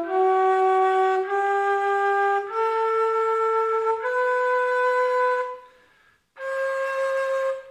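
Low G dizi, a Chinese bamboo transverse flute, playing an ascending scale slowly: four held notes, each a step higher than the one before. A short breath pause follows, then the top note is held again.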